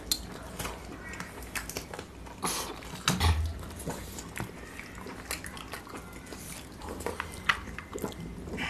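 Chewing and mouth sounds of people eating by hand, with scattered small clicks and smacks as fingers pick through a fish head and rice.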